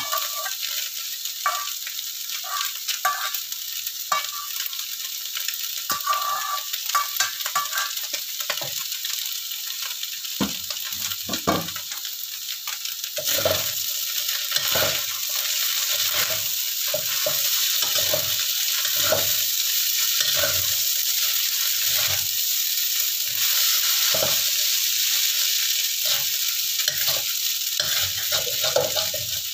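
Rice vermicelli and winged beans sizzling in a hot wok, with a spatula tossing and scraping the noodles. There are light ticks at first, then scraping strokes about once a second from about ten seconds in, and the sizzle grows louder partway through.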